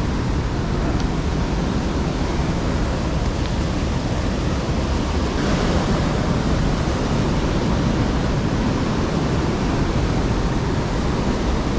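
Surf breaking on a rocky shore, heard as a steady rush of noise mixed with wind on the microphone. The noise brightens briefly about five and a half seconds in.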